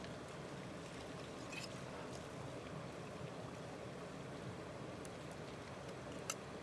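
A steady low background rush. Over it come a few faint clicks and, near the end, one sharp click as a knife probes the flesh of an opened giant pearl mussel against its shell.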